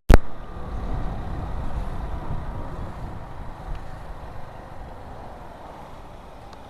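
Low vehicle riding rumble from a Honda Pop 110i motorcycle's small single-cylinder engine and the road, slowly fading. A sharp click right at the start.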